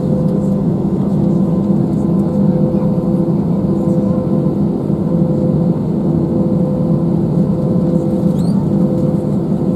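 Steady cabin noise of an Airbus A320-200 taxiing, heard inside the cabin: a continuous engine drone with a few steady hum tones, some of them fading in and out.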